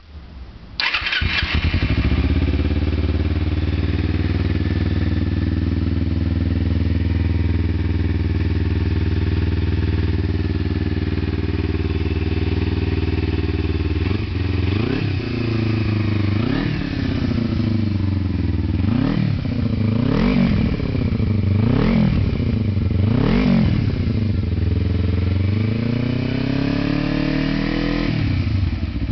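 Kawasaki Ninja 250R parallel-twin motorcycle engine breathing through an aftermarket RPM 80D-RAPTOR chambered exhaust silencer: it starts about a second in and idles steadily. About halfway through it is revved in a series of sharp throttle blips, each rising and falling quickly, before settling back to idle near the end.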